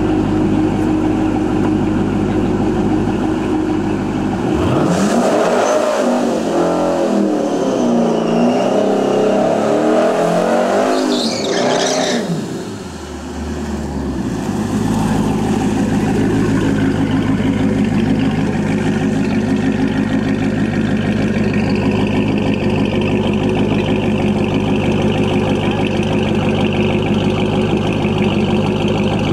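Twin-turbo C5 Corvette V8 idling. It is then revved hard through a burnout, its pitch rising and falling repeatedly, with a high rising whine near the end of the burnout. It then settles back to a steady rumbling idle as the car creeps forward to stage.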